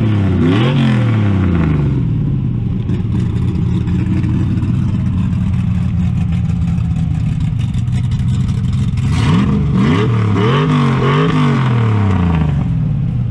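Hand-built 454 cubic-inch big-block V8 idling steadily, revved up and back down as it begins. About ten seconds in it is blipped in a quick run of revs and then settles back to idle.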